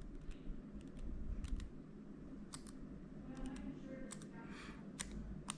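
Return key of an M1 MacBook Air pressed several times, giving only faint, soft clicks. The freshly reinstalled key is now quiet rather than snapping like a sticky key.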